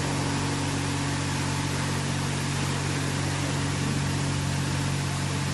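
High-pressure water jets of a touchless car wash's floor spray hissing steadily against a car's underbody, wheels and sides, over a steady low machine hum.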